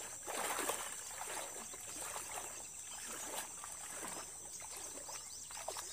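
Legs wading through knee-deep water, sloshing and swishing with each stride in a string of soft splashes, the strongest about half a second in.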